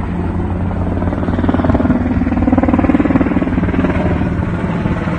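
An engine running steadily with an even, rapid pulse, getting a little louder about two to three seconds in.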